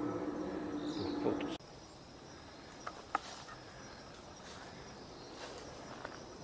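Insects calling steadily in the background, with a few light clicks. A steady low humming tone cuts off suddenly about one and a half seconds in.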